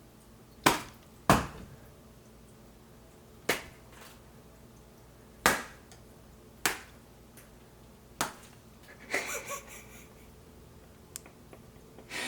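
Sharp, separate smacks and snaps from foley props struck for fight sound effects, about seven at irregular spacing. A short crackly rustle follows just after nine seconds in.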